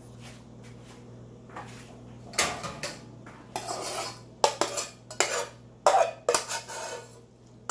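A utensil scraping and knocking against a cooking pot as cheese-sauced spaghetti is scraped out onto a plate: a run of sharp clanks and scrapes starting about two seconds in.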